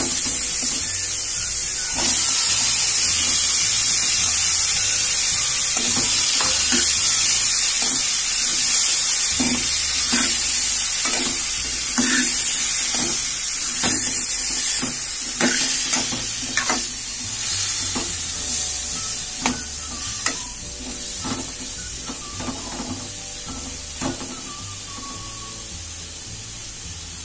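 Chopped chayote, tomato and onion sizzling in hot oil in a metal pan while a steel spoon stirs them, clinking and scraping irregularly against the pan. The vegetables are being sautéed, and the sizzle dies down gradually over the second half.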